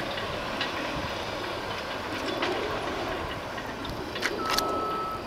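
Machinery running at a distance, a steady clattering noise. A high steady tone sounds for about a second near the end.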